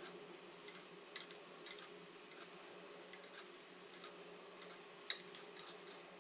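Egg frying in hot oil in a saucepan, crackling with scattered small pops and ticks as a metal spoon bastes oil over it, with one louder click about five seconds in. A steady low hum runs underneath.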